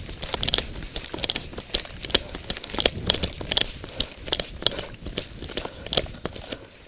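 Footsteps moving quickly through dry leaves and undergrowth: an irregular run of crunches and crackles, a few a second, growing fainter near the end.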